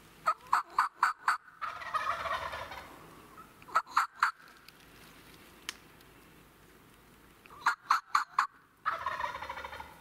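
Wild turkey tom gobbling twice, each gobble a raspy rattle about a second long, with a run of short, sharp turkey yelps just before each gobble and another brief run of yelps in between.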